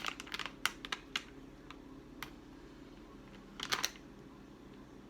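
Snack packaging being handled and turned over: faint crinkles and clicks in the first second, a single click about two seconds in, and a short crinkle near four seconds.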